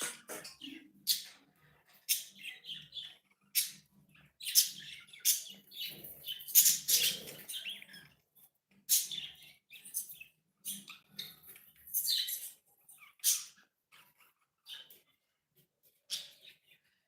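A pet parrot calling in short, irregular bursts of scratchy chirps, roughly one every second or so.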